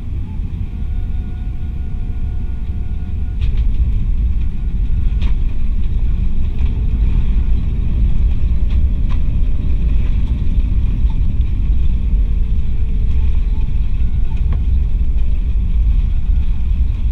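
Cabin noise of an Airbus A319 on landing: a steady low rumble that steps up in level about three and a half seconds in as the jet touches down, with a couple of knocks, then stays loud as the airliner rolls and slows on the runway with its spoilers raised.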